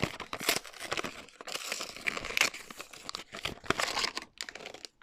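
Packaging being torn open and crinkled as a box of camera film is unwrapped: a run of irregular rustling and tearing crackles.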